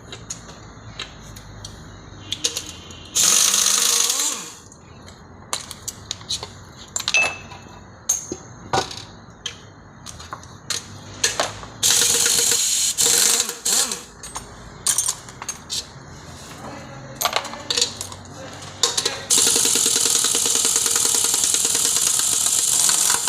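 Clinks and knocks of metal tools during repair work, with two short bursts of hiss. About nineteen seconds in, a loud steady machine noise starts and keeps running.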